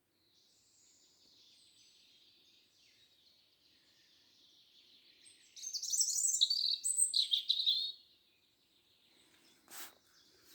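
Songbirds singing in a forest: faint high chirping, then a louder rapid song phrase about halfway through that lasts around two seconds. A brief noise near the end.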